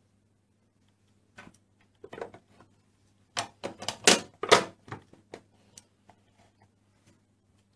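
Hard plastic Play-Doh toy pieces clicking and knocking together: a few scattered clicks, then a quick run of louder knocks around the middle.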